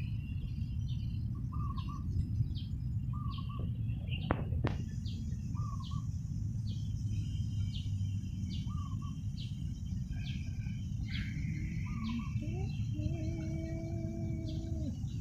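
Wind rumbling on the microphone, with small birds chirping over and over, short calls about once a second. A steady high-pitched whine comes in about a third of the way through, and a held low tone sounds for a couple of seconds near the end.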